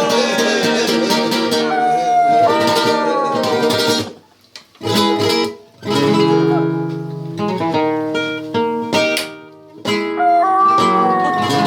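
Flamenco singing por siguiriyas over acoustic flamenco guitar: a voice sings long, wavering, falling melismatic lines against the guitar's chords. About four seconds in, everything stops briefly. The guitar then plays on its own, and the voice comes back near the end.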